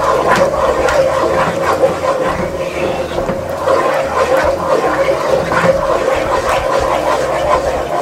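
Wooden spoon stirring a thick, pasty roux of butter, flour and milk in a nonstick pot: quick, repeated wet squelching and scraping strokes, over a steady hum.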